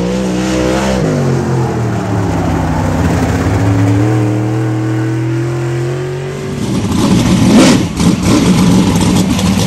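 Dirt modified race car's V8 engine on a dirt oval: the pitch drops for the first second as the car lifts, then climbs steadily as it accelerates. About six and a half seconds in, a louder, rougher sound with sharp hits takes over.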